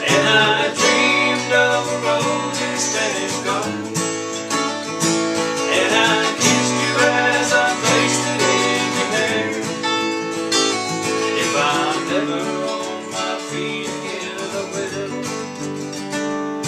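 Two acoustic guitars playing together in a country-style duet, plucked melody notes running over strummed chords.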